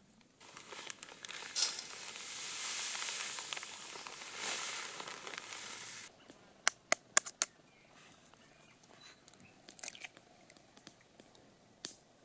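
Salt pouring from a plastic bag onto a metal tray, a steady hiss for about five seconds that cuts off suddenly. It is followed by scattered sharp clicks and taps, with an eggshell cracking near the end.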